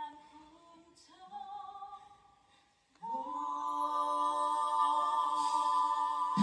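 A woman singing without accompaniment through a handheld stage microphone: two short phrases, then a long held note from about three seconds in.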